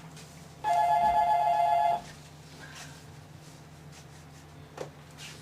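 Desk telephone giving one electronic ring, a warbling two-note tone about a second and a half long, starting under a second in.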